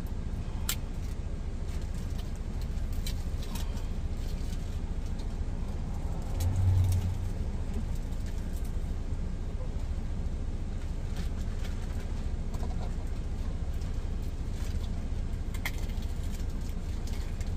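A steady low rumble runs underneath, with scattered small clicks and crinkles from a plastic zip bag being handled. About six and a half seconds in there is a brief louder low thump.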